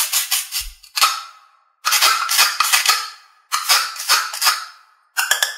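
Toy watermelon's two halves being pulled apart and pressed back together, giving repeated bursts of crackling, rasping clicks that each fade out within about a second.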